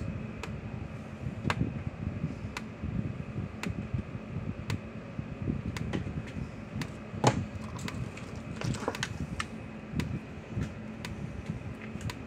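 Zareba Red Snap'r LI30C fence charger pulsing, a sharp tick about once a second over a steady hum, with one louder crack about seven seconds in. The regular pulses are the sign that the repaired unit, fitted with a new capacitor, is putting out again.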